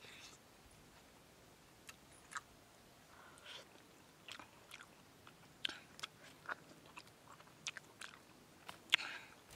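A person chewing the soft flesh of a sugar apple close to the microphone, with quiet, irregular small clicks and smacks of the mouth.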